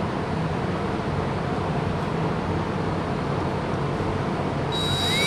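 Steady background hiss with a low hum; near the end a small power tool, likely a cordless drill, starts and whines up in pitch.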